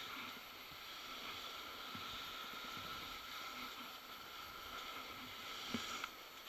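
Skis hissing and scraping steadily over snow on a downhill run, with two sharp knocks near the end.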